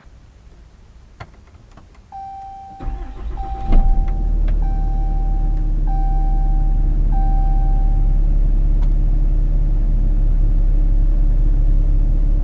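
2013 Ram 3500's 6.7-litre Cummins inline-six turbo diesel cranking briefly and catching about four seconds in, then idling steadily. A few clicks come first, and a warning chime sounds five times, about a second and a half apart, over the start.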